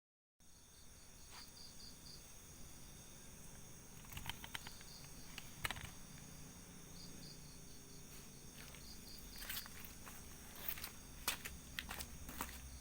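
Night insects: crickets chirping in short pulsed runs over a steady, high-pitched insect drone, with a few sharp clicks.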